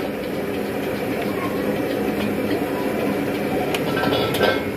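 Gas wok burner running with a steady rushing noise, with a few sharp metal clinks of the wok near the end.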